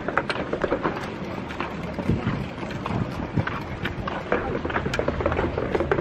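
Walking footsteps and the knocking of carried gear, including a folding beach chair: irregular clicks and knocks over a steady low rumble of wind and handling on the microphone.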